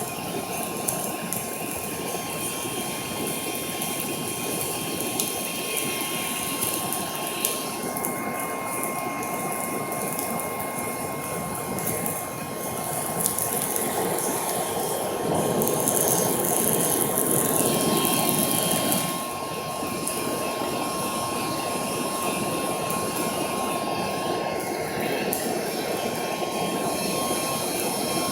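Electric air pump blowing air into a charcoal forge fire: a steady rushing whir with a thin high whine, louder for a few seconds midway.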